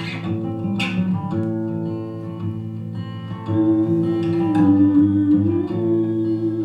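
Instrumental music led by plucked guitar, with held notes that swell louder about halfway through.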